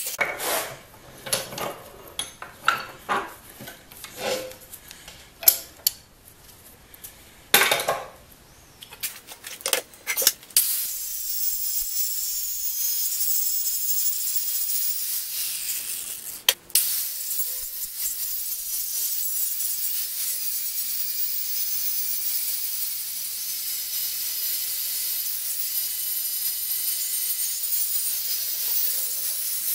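Irregular metal knocks and clatter for about the first ten seconds, then a DeWalt angle grinder grinding a steel plate held in a vise, a steady high hiss that breaks off briefly a few seconds after it starts.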